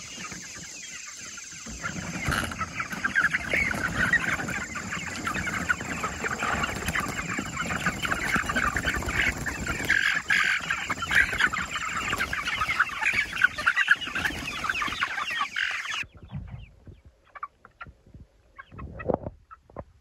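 A flock of about fifty young meat chickens clucking and cheeping all together, starting about two seconds in as they are let out of their coop. The flock noise cuts off suddenly near the end, leaving only a few faint sounds.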